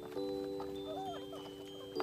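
Background music: a sustained chord with a light wavering melody over it.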